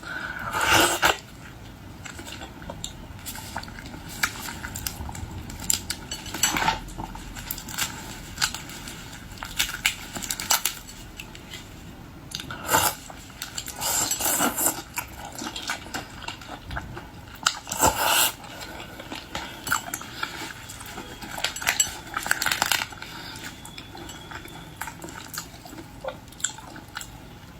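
Close-up eating of boiled seafood: scattered clicks and clinks of dishes and shells being handled, with chewing and several louder crackles spread through.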